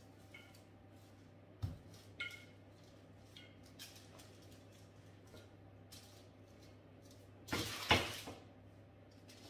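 Wooden rolling pin working dough on parchment paper: faint knocks and a small clink early on, then a louder rustle of the parchment paper about 7.5 seconds in as it is lifted.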